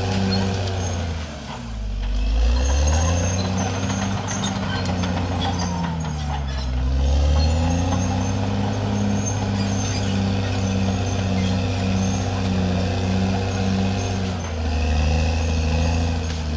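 CAT D6R XL crawler dozer's diesel engine running hard as it pushes dirt and brush, its pitch sagging and recovering about two seconds in, again around seven seconds and near the end as the blade loads up. Steady machine noise with a regular pulsing beat through the middle stretch.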